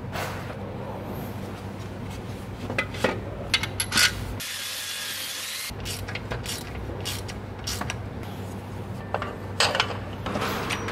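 Metal hand tools clicking, clinking and scraping against engine parts in a car's engine bay, with a few sharp clinks around the middle and again near the end, over a steady low hum. A short hiss comes about halfway through.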